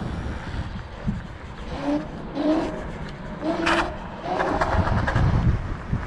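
Wind buffeting the microphone while riding an electric scooter, with a few short pitched notes and one brief scrape-like noise around the middle.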